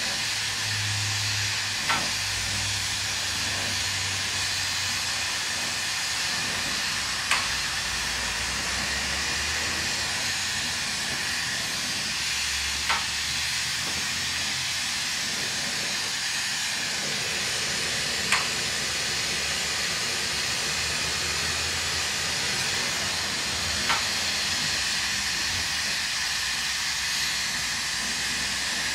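Glassblowing bench torch burning with a steady hiss while glass is heated in its flame, with a light sharp click about every five and a half seconds.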